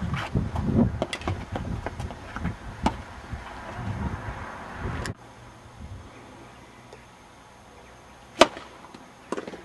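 Tennis balls struck with racquets: sharp cracks scattered over a low rumble that stops abruptly about five seconds in, then a quiet stretch and one loud crack about eight and a half seconds in.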